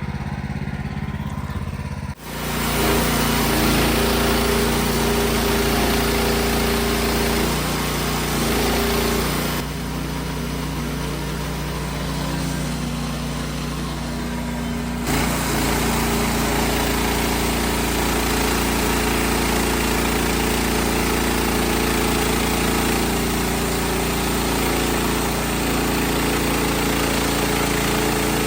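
Wood-Mizer LX55 portable band sawmill running, its engine steady and the band blade sawing through a poplar log. The sound changes abruptly about two seconds in, and is lower from about ten to fifteen seconds in.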